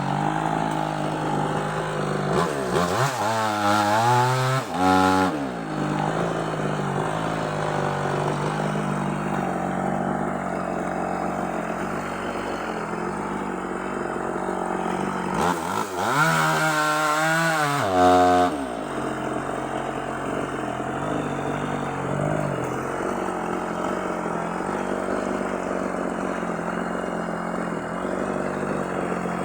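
Small chainsaw engine running at a steady idle, revved up and back down twice: once a few seconds in and again about halfway through.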